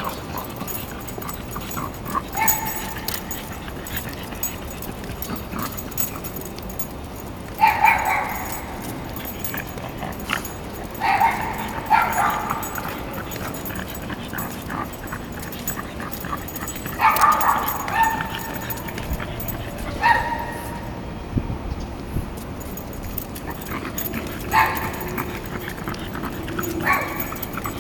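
A dog giving short, high barks at irregular intervals, about nine in all.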